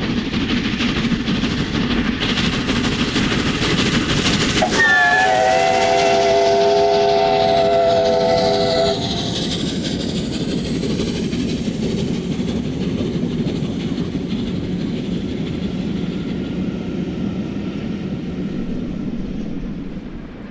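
LNER A2 class three-cylinder Pacific steam locomotive hauling a loaded coaching train past at speed, with steam exhaust and wheel and coach running noise. About four and a half seconds in, its South African chime whistle sounds a multi-note chord for about four seconds and cuts off sharply. The rumble of the passing coaches continues and fades near the end.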